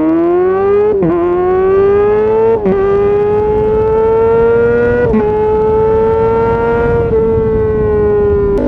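Supersport motorcycle engine under hard acceleration through the gears, heard from the rider's seat: the pitch climbs, dips briefly at four quick upshifts, then holds nearly steady in the last few seconds.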